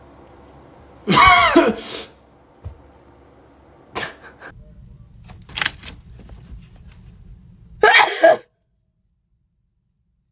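A person sneezing, two loud sneezes about seven seconds apart with short smaller vocal noises between them; the sound cuts off abruptly just after the second sneeze.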